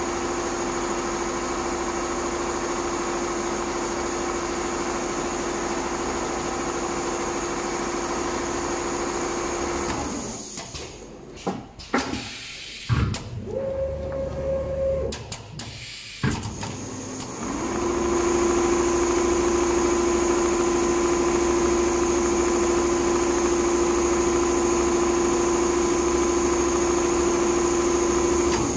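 Multihead computerized leather sewing machine running, a steady motor hum with a held whine. In the middle the whine drops out for about seven seconds, with a few clicks and a brief higher whine, then comes back a little louder.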